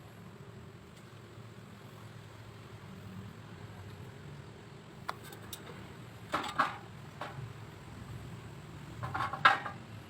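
A few short knocks and clatters over a faint low hum: a single knock about halfway through, a pair soon after, and a louder cluster near the end.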